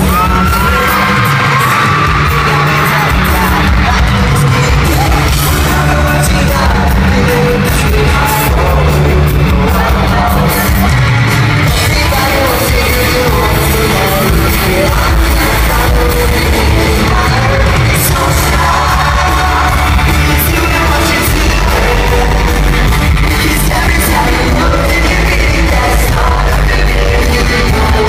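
Rock band playing live with electric guitars, bass, drums and lead vocals, and the crowd screaming along. The whole sound is loud and distorted, recorded on a phone in the audience.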